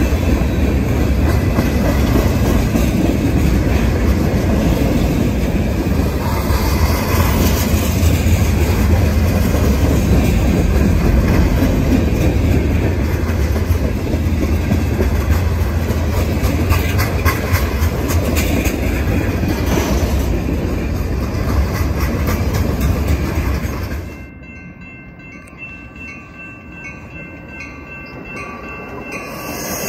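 Freight train of tank cars and covered hoppers rolling past close by, steel wheels clacking over the rail joints. About 24 seconds in it cuts to a much quieter stretch with a faint evenly repeating tone, and a Metra commuter train approaches, growing louder near the end.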